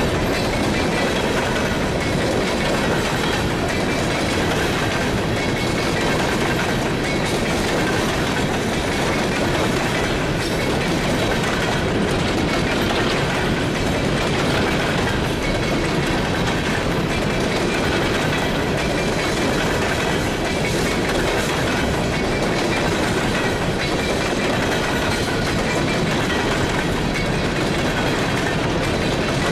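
Freight train of coal cars rolling past: a steady rumble and rattle of steel wheels on the rails, with the clickety-clack of the cars' wheels crossing rail joints.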